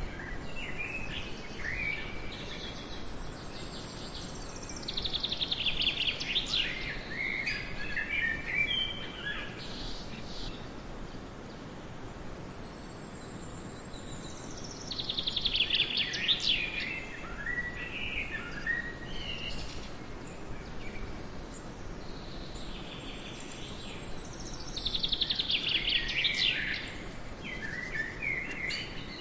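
A songbird singing short trilled phrases with falling notes, three times, about ten seconds apart, over a steady background hiss.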